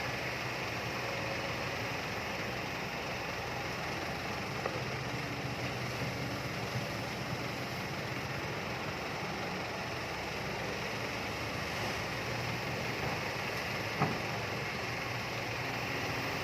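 Kobelco excavator's diesel engine running steadily, with a couple of light knocks, the sharpest one near the end.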